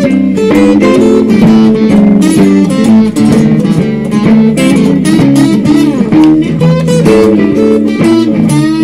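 Solo guitar playing a Texas blues shuffle, with a repeating low shuffle pattern under improvised licks. The recording is loud and a little distorted.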